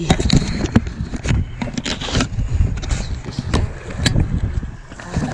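Knocks, scrapes and rustling close to the microphone, a dozen or more sharp strokes at irregular intervals, over a steady low rumble: the handling noise of a body-worn camera while a landed fish and fishing gear are dealt with on concrete.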